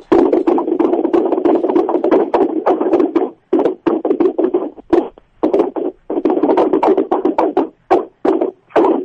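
Loud banging and scraping noises heard over an open mobile-phone line, like furniture being moved or something being hit, which the radio hosts take for a poltergeist. The noise runs continuously for about three seconds, then breaks into short bursts.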